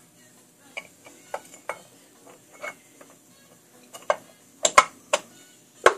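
Sharp metal clinks and taps as a chrome cam cover is handled and seated against a Harley-Davidson Evolution V-twin's cam chest, about ten separate clicks, the loudest two near the end.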